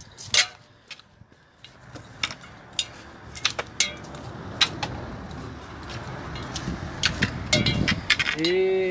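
Scattered light clinks and taps from handheld gear and phone handling while walking, with a rush of noise that builds to its loudest about seven to eight seconds in and a short hummed voice sound near the end.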